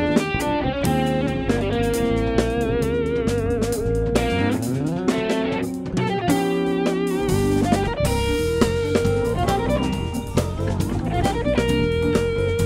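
Live funk band playing: an electric guitar lead holding long notes with vibrato, over electric bass, drum kit and keyboard.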